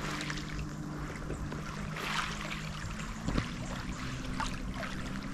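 Small waves lapping and splashing softly at a pebbly lochside shore, over a steady low hum.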